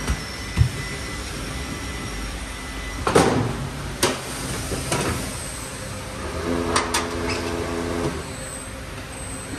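Knocks and clanks of tyre-changing work on a car, the loudest about three seconds in, with a steady hum for a couple of seconds in the second half.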